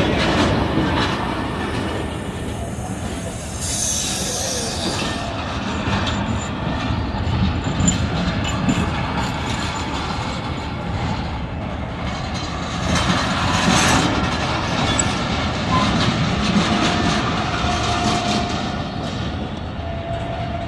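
A train moving along the platform, with a steady rumble of wheels on rail. There is a hiss about four seconds in, and a faint thin squeal near the end.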